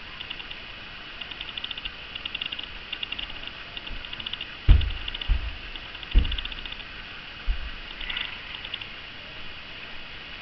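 Short bursts of rapid, high-pitched chirping repeat about once a second throughout. A few dull low thumps land near the middle, the first one the loudest.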